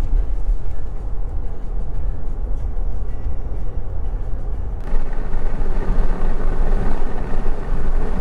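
Steady road and engine rumble heard inside a moving car. About five seconds in, it abruptly turns brighter and hissier.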